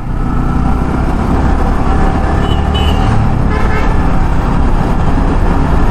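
Motorcycle riding along the road: engine running steadily under a dense rush of wind and road noise on the rider's clip-on microphone.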